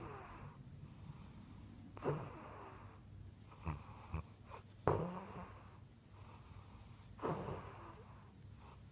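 Bulldog breathing heavily and noisily, in separate loud breaths every second or two, the loudest about five seconds in.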